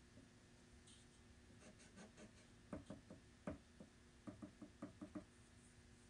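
Faint scratching and dabbing of a painting tool on a small oil-painting panel, with a scatter of soft taps and knocks, a few around three seconds in and a quick cluster a little later.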